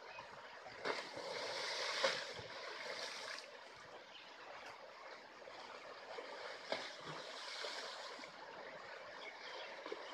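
Running water with a steady rush that swells for a couple of seconds near the start, and a few short sharp clicks over it.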